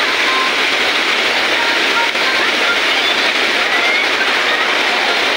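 Heavy downpour and muddy floodwater running fast across a lane: a loud, steady rushing hiss.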